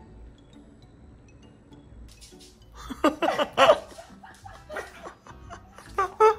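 Laughter in short bursts, loudest about three seconds in, over quiet background music. A falling vocal sound starts near the end.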